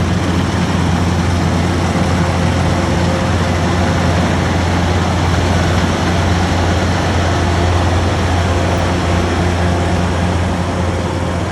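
Rice combine harvester running steadily while cutting rice: a constant low engine hum under a broad, even mechanical noise, with no change in speed.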